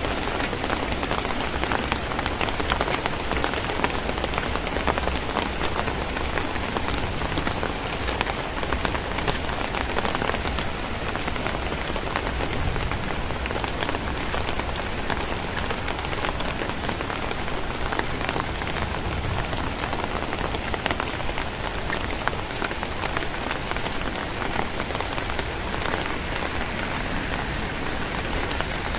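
Very heavy rain pouring steadily: a dense, even hiss with countless individual drops ticking through it.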